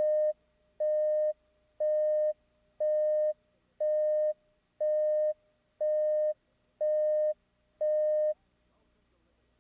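Countdown leader beeps on a broadcast videotape: nine short beeps of the same tone, one a second and each about half a second long, one for each number of the countdown from 10 down to 2. A faint steady tone at the same pitch carries on between them.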